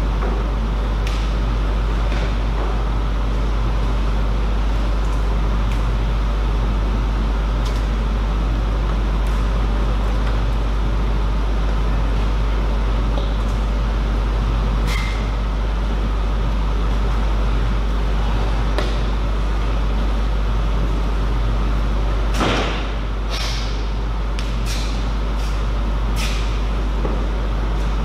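Steady low hum of the playing hall's background, with scattered light clicks and knocks, the strongest about three quarters of the way through, followed by a short run of clicks.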